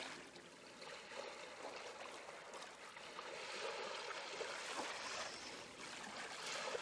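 Flowing stream water, a faint, steady trickling and rushing.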